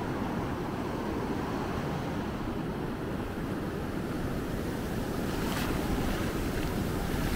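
Atlantic surf breaking and washing up the beach in a steady rush, with wind buffeting the microphone. It swells a little louder after about five seconds.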